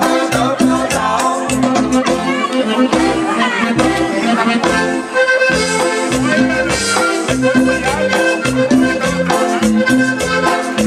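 Loud accordion-led Latin dance music with a steady beat and shaker, played over a sonido's (mobile DJ) sound system.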